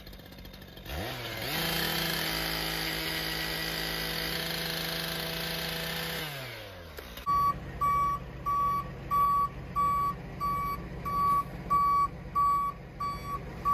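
Gas-powered handheld saw spinning up about a second in, running at a steady high speed for about five seconds, then winding down. After that, a tow truck's reversing alarm beeps about twice a second.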